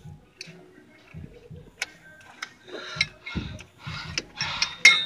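Ratcheting combination wrench working a bolt: scattered clicks, then busier metallic clicking, scraping and clinking in the second half, with a few sharp clanks near the end. The wrench's ratchet mechanism is broken and slipping.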